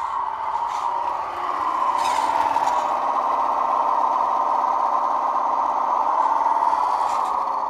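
A 1/16 scale radio-controlled Claas Axion model tractor drives over a concrete floor, its drive giving a steady whine. It grows louder for a few seconds as the tractor passes close by, then eases off near the end.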